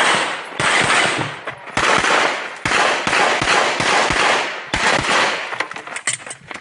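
Rapid 9 mm pistol fire from a Glock 47 in quick strings of shots with short pauses between them, as in a USPSA stage run; the shots thin out after about five seconds.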